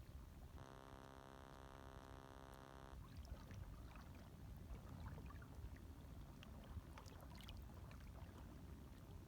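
Faint, gentle lapping of small waves, with little splashes and trickles scattered through it. For the first couple of seconds it is a smoother, even hiss.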